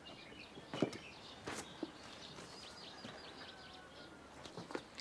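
Faint birds chirping over quiet outdoor ambience, with a few soft clicks.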